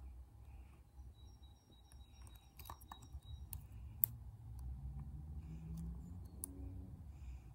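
Faint, scattered clicks and ticks of a metal lock pick raking and setting the pins of a lock held under medium-high tension, over a low handling rumble; the sharpest click comes about four seconds in.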